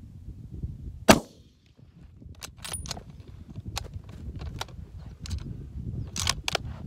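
A single shot from a .30-06 BSA Monarch bolt-action rifle about a second in, loud and echoing, then the bolt worked with a series of metallic clicks and clacks. Wind rumbles on the microphone throughout.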